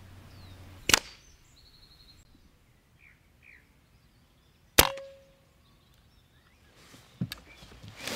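Two shots from a moderated .22 Cometa Orion SPR pre-charged pneumatic air rifle, each a sharp crack, about a second in and nearly four seconds later. The second shot is followed by a short ringing tone.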